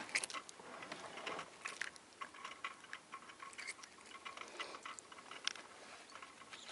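Irregular light clicks and taps from handling a caught perch and the jig-rig lure hooked in its mouth, a few every second.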